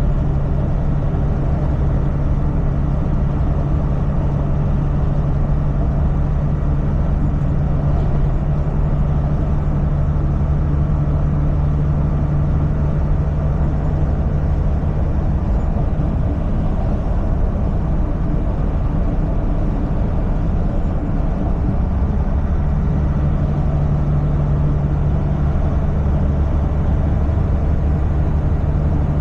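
Semi-truck diesel engine and road noise while driving: a steady low engine drone that eases for several seconds about halfway through, then comes back.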